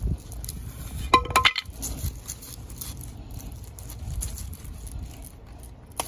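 A ripe pineapple being twisted and pulled off its plant by hand: rustling and crackling of the stiff, spiky leaves and handling noise. A cluster of sharp clinking clicks that ring briefly comes a little over a second in.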